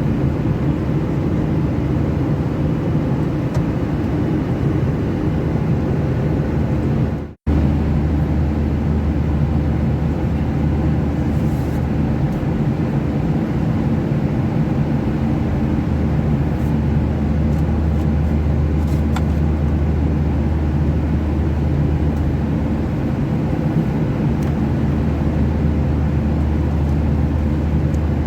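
Steady cabin noise inside a Boeing 737-800 in flight: the rush of air and the drone of its CFM56 engines, with a deep steady hum. The sound cuts out for an instant about seven seconds in.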